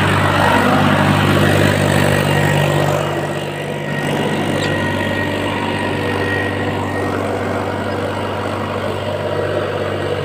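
Mahindra tractor's diesel engine running steadily under load as it pulls a disc harrow through wet mud. It is louder for the first three seconds, then a little quieter.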